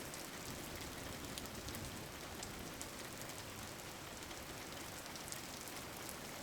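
Steady rain falling, a continuous even hiss with scattered light drop ticks.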